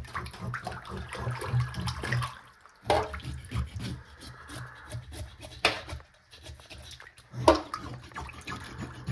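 Water sloshing and splashing in a stainless steel kitchen sink as whole bass are descaled underwater with the back of a knife, with a few sharp knocks. A steady low hum runs underneath.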